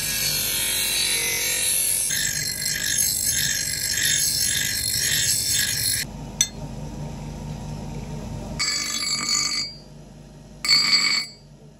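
Steel being ground against a bench grinder's abrasive wheel: a steady harsh grinding that cuts off abruptly about six seconds in, leaving a low hum. Near the end come short, choppy bursts with steady ringing tones.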